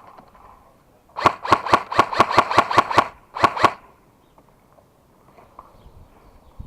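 Airsoft gun firing: a rapid string of about a dozen sharp pops at roughly seven a second, then a short string of three.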